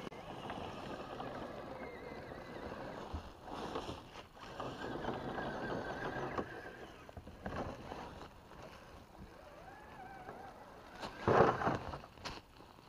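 Electric motor and geared drivetrain of a 1/10-scale RC crawler truck whining, the pitch wavering up and down with the throttle as it climbs a steep slope over leaves and a log. There is a louder thump about eleven seconds in.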